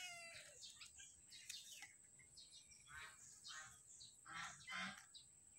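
Faint bird calls, a few short chirps scattered through, over near-silent outdoor background.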